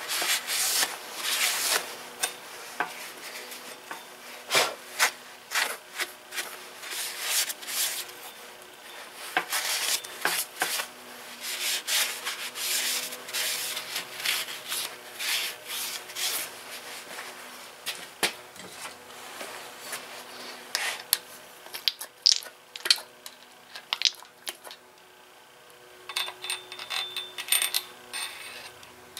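Hand-tool work on cast-iron engine parts during disassembly: irregular metal scraping and rubbing, with scattered sharp clicks and knocks.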